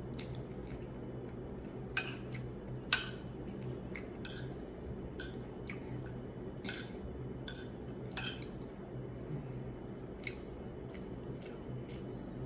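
Metal spoon and fork clinking and scraping on a ceramic plate while eating rice and stew, in short irregular clicks, two sharper ones about two and three seconds in. A steady low hum runs underneath.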